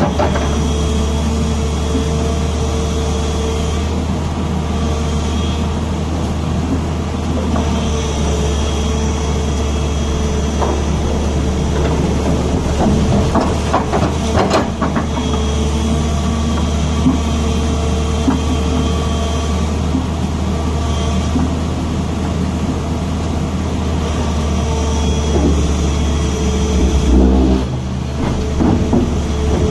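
Tata Hitachi excavator's diesel engine running under a steady heavy drone, with a higher whine that rises in and fades out every few seconds and a few short knocks.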